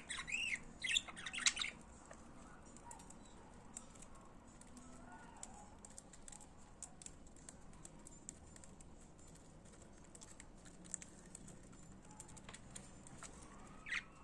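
Budgerigars chirping and warbling in quick rising and falling notes for the first two seconds, then a quiet stretch of faint scattered clicks, with one short chirp near the end.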